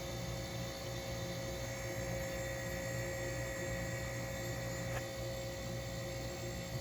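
Steady electrical and mechanical hum of a running appliance. About five seconds in there is a faint click, and a high tone within the hum cuts off.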